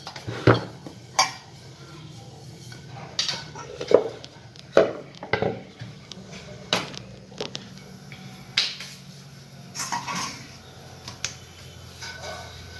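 Kitchen utensils knocking and clattering as a flat tawa griddle is handled on a gas stove, about a dozen scattered knocks with the loudest about half a second and four seconds in. A low steady hum runs underneath.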